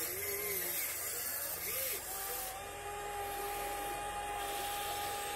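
Whine of small electric motors on radio-controlled construction models. Two steady tones briefly rise and fall in pitch as the motors speed up and slow down, and the higher one holds level through the second half.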